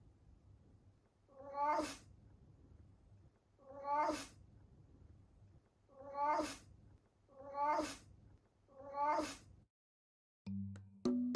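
Elderly domestic cat sneezing five times, a couple of seconds apart. Each sneeze is a short squeak that rises in pitch and ends in a sharp burst.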